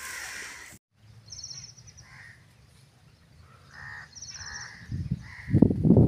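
Crows cawing several times, short calls, with a rapid high chatter from smaller birds twice. Near the end a loud low rumbling noise comes in.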